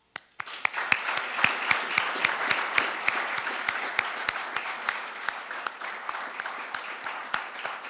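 Audience applause starting about half a second in and slowly thinning. One person's hand claps close to the microphone stand out as sharp, regular claps at about four a second.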